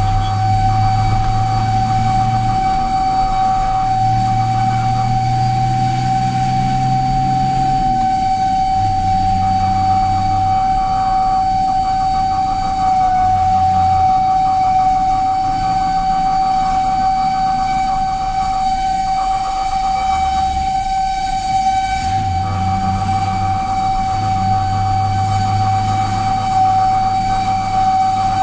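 Fire engine siren sounding a steady, unbroken tone while the truck runs to a call. Over it, a lower drone and a rapid higher pulsing come and go several times.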